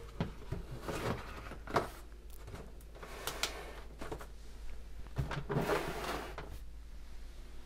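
A cardboard case of plastic tennis ball cans being handled and shifted under a sink: a few separate scrapes and knocks, with a longer scrape late on.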